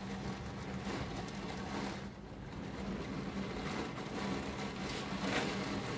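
Heavy rain pouring down in a violent thunderstorm with wind gusts, the noise rising and falling as the gusts come and go.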